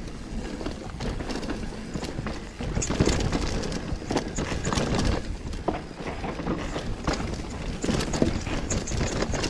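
Mountain bike riding fast down a rough downhill trail: a steady rush of tyres on dirt with frequent sharp knocks and rattles as it goes over roots and rocks, louder and busier from about three seconds in.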